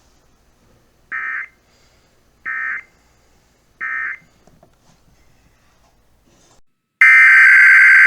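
EAS SAME digital data bursts. Three short end-of-message bursts sound about 1.3 s apart. About seven seconds in, the first and much louder header burst of the next alert begins.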